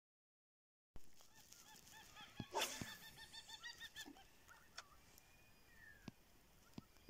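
Near silence for the first second, then a bird calls in a fast run of short repeated notes, several a second, for about three seconds. A brief loud rushing noise comes in the middle of the run, and a few sharp clicks and thin falling whistle-like notes follow.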